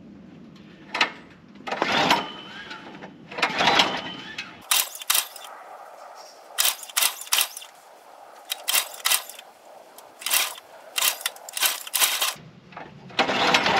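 Countyline log splitter's engine being hand-started: a few rough pulls and a string of sharp clicks, then near the end the engine catches and runs.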